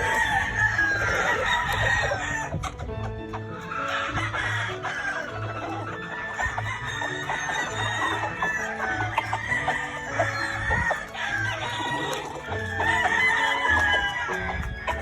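Gamefowl roosters crowing and hens clucking, with background music carrying a steady beat underneath.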